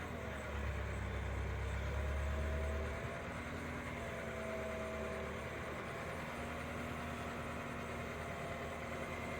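An engine idling steadily, with its low hum a little stronger for the first three seconds.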